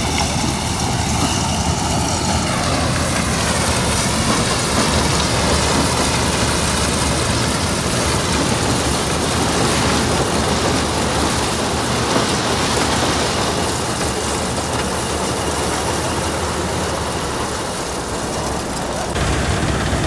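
Tractor-mounted Standard TSC-513 combine harvester with a maize cutter, running while it cuts and threshes standing maize: a loud, steady, dense machine noise, with a faint whine that sinks a little in pitch during the first few seconds.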